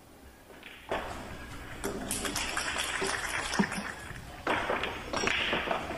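Audience applauding, starting about a second in, with a short lull about four seconds in before it picks up again.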